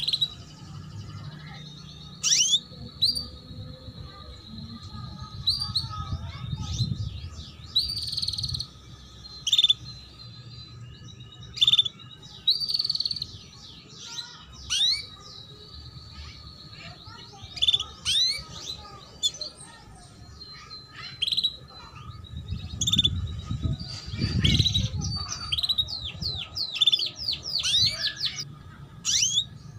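A female canary in breeding condition giving short, sharp 'cuit cuit' chirps over and over at an irregular pace, the calls used as a lure to set male canaries singing. A thin high tone runs beneath much of it, and a low rumble swells twice in the background.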